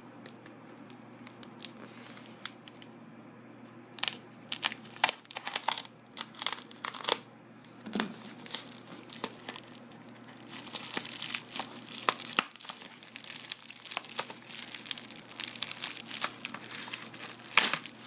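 Packaging being crinkled and torn open by hand, with scattered sharp clicks and handling noises. Quiet for the first few seconds, then intermittent clicks, and from about halfway a denser stretch of crinkling.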